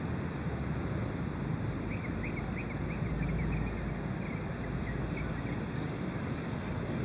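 Outdoor ambience: a steady low rumble of distant traffic noise and a constant high-pitched whine, with a short run of faint bird chirps from about two to five seconds in.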